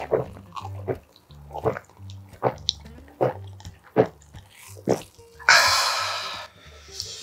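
Close-miked gulping of a fizzy soft drink from a glass: about seven swallows in an even rhythm, followed a little past halfway by one loud breathy exhale of about a second as the glass comes down.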